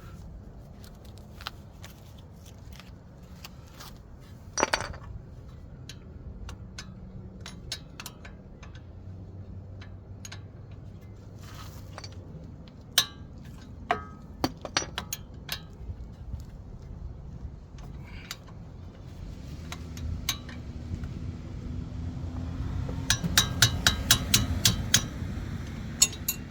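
Steel hand tools, a socket and wrench, clinking and knocking against the rear brake caliper bolts, scattered single clicks with a quick run of rapid clicking near the end.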